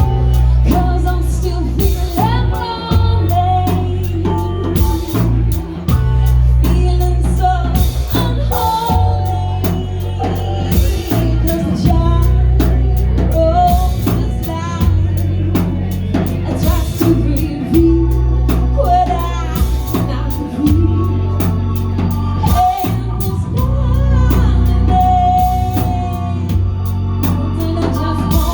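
A band playing a song: singing over a drum kit with steady drum hits and heavy bass.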